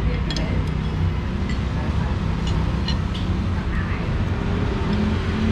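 Steady low background rumble, with faint voices and a few light clicks and clinks scattered through it.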